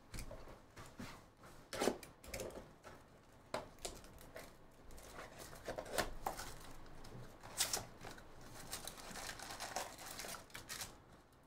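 A cardboard Topps Chrome trading-card box being torn open and its foil-wrapped packs pulled out: a run of tearing, rustling and crinkling with scattered light taps and clicks.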